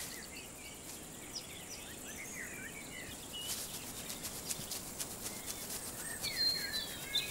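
Songbirds chirping and warbling over a steady outdoor hiss. From about halfway, a faint rapid ticking joins in.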